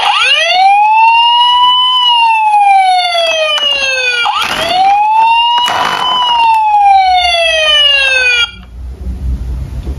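Electronic siren of a battery-powered toy police truck, wailing up and down in two slow rising-and-falling cycles, then cutting off suddenly about eight and a half seconds in. Light handling noise follows.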